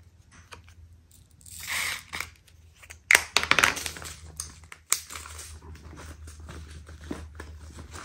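Small plastic drill bags crinkling and rustling as they are handled, with a run of sharp clicks and taps about three seconds in, over a low steady hum.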